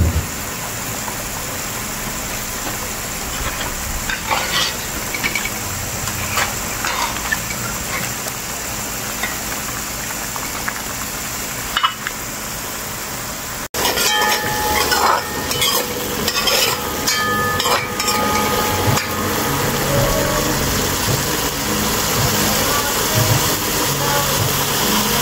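Curry frying and sizzling in a metal pot on a gas stove while a metal spoon stirs it, with scattered clicks. About halfway through it cuts to curry paste frying in oil, louder, with the spoon scraping and clinking against the pot.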